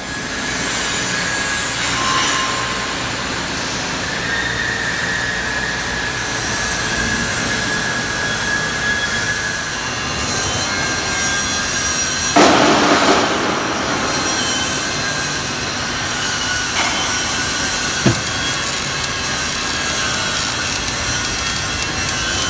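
MIG (GMAW) welding arc hissing and crackling steadily, with a louder surge about halfway through and a sharp click near the end.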